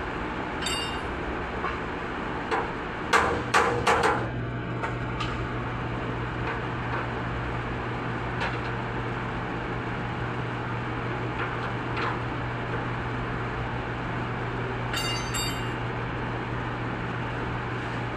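Metal knocks and clinks of tools and car body parts over a steady low workshop hum. A quick cluster of sharp metallic knocks comes about three to four seconds in. Bright ringing clinks come near the start and again about fifteen seconds in.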